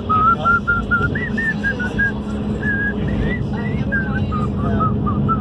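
A tune whistled as a single line of held high notes with small slides between them, over the steady drone of a vehicle travelling on the road.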